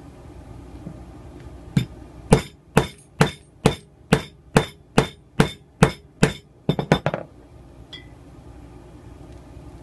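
Hammer striking a grommet-kit hole punch to cut a hole through curtain fabric, with a wooden block behind. About a dozen evenly spaced blows come a little over two a second, ending in a quick flurry of lighter taps.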